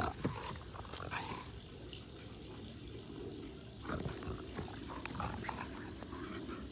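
Two dogs play-fighting and growling at each other, in short bursts at the start and again about four seconds in.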